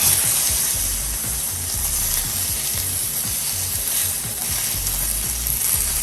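Meatballs sizzling on a hot sizzling plate, a hissing crackle that starts abruptly as they go on, over background music.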